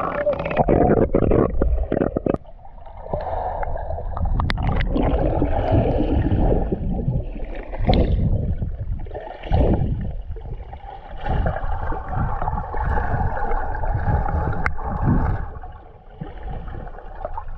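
Muffled water sloshing and gurgling picked up by a camera held underwater and at the water's surface while swimming, with a few sharp knocks and clicks.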